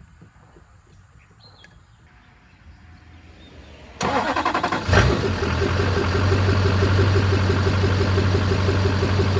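LB7 Duramax 6.6-litre V8 turbo-diesel engine being cranked by the starter about four seconds in, catching about a second later and settling into a steady idle.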